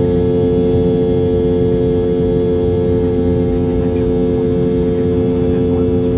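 Rolls-Royce BR715 turbofan of a Boeing 717, heard from a cabin seat just ahead of the rear-mounted engine, running at climb power after takeoff. A loud, steady hum of several held tones over a low rumble.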